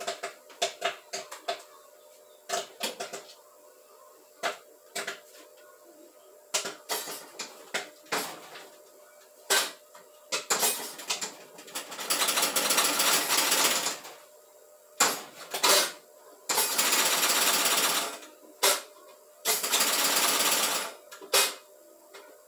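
Popcorn popping in a kettle-style popcorn machine: scattered single sharp pops, sparse as the batch nears done. About halfway through, three long loud stretches of rustling from a large clear plastic sheet being handled.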